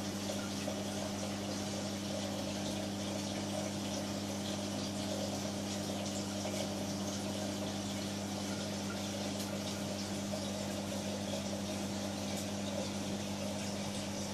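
Reef aquarium pumps running with a steady hum, over the constant rush of moving water in the tank system.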